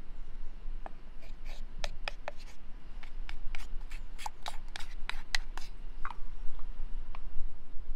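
Wooden spoons clicking, tapping and scraping against a glass jar and a wooden cup while a thick white culture is spooned into a jar of milk: a quick irregular run of light clicks for about five seconds, with a few more near the end.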